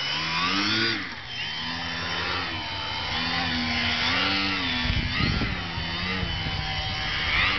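Electric motor and propeller of a small RC foam plane whining in flight, its pitch rising and falling as the throttle is worked to hold the plane nose-up in a hover.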